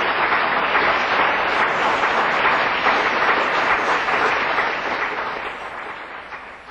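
Audience applauding and cheering at the end of a live song. The clapping holds steady, then fades away over the last two seconds or so.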